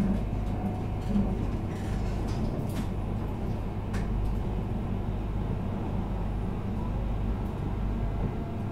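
Steady running noise of a Yamagata Shinkansen Tsubasa train heard from inside the passenger car while it travels on the conventional single-track line: a low rumble with a few faint clicks.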